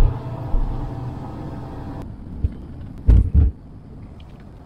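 Vehicle engine and road noise heard from inside the cab while driving. About halfway through, the engine hum drops away as the vehicle slows, and then come two loud low thumps.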